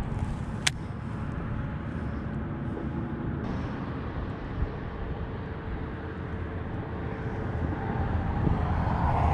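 Steady low rumbling noise of wind buffeting the microphone, with one sharp click less than a second in.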